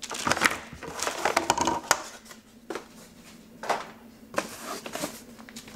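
Cardboard box and plastic packaging rustling and crinkling as the contents are lifted out by hand, followed by a few sharp knocks and taps as items are handled and set down.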